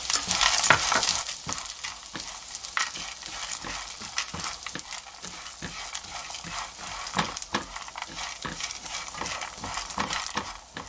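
Mixed nuts and seeds with small dried anchovies being stir-fried in oil in a thin nonstick frying pan, pushed round with a silicone spatula: repeated scraping strokes and the clatter of nuts over a sizzle of hot oil.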